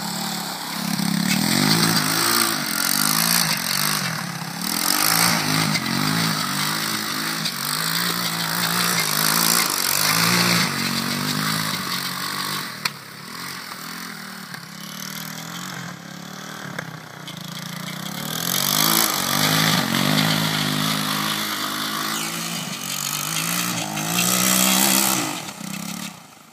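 Honda ATC200X three-wheeler's single-cylinder four-stroke engine revving up and down over and over as the machine is ridden in circles on snow. It is quieter through the middle while the machine is farther off, and it fades out near the end.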